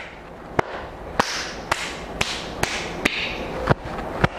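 Relaxed open palm slapping down the outer chest and along the arm in pat-massage (拍打) along the lung meridian: sharp skin slaps, about two a second, in an even rhythm.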